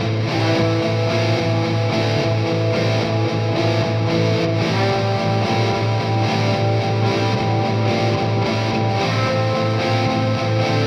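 Background music: distorted electric guitar over a fast, steady low pulse, with held notes that change about halfway through and again near the end.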